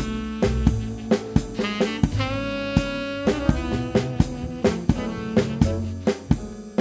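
Swing jazz backing track with a saxophone melody, played along with on an electronic drum kit set to a jazz kit sound: ride cymbal and eighth-note triplet snare comping.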